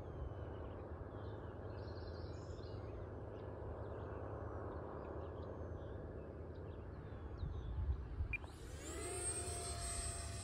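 Electric radio-controlled model airplane flying at a distance: a faint motor whine under wind rumble on the microphone. About eight and a half seconds in, the whine rises quickly in pitch as the throttle is opened, then holds high and steady.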